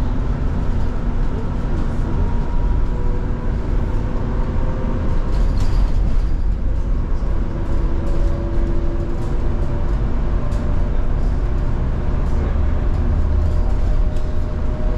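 Irizar ie tram battery-electric bus running along the road, heard from inside: a steady low rumble with faint motor whines that drift slowly in pitch, and a few light clicks and rattles.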